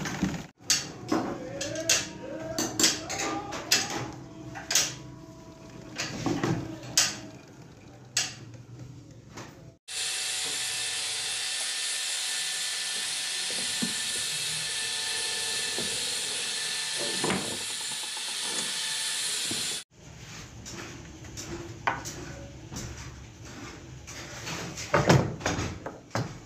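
Metal clicks, knocks and rattles from a Singer-style Shoukat sewing machine being worked on and run by hand. About ten seconds of steady loud hiss breaks in the middle.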